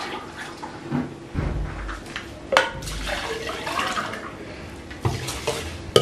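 Water poured from a plastic cup into an aluminium pot of raw rice and sloshed around as the rice is washed, with one sharp knock about two and a half seconds in and a few lighter clicks near the end.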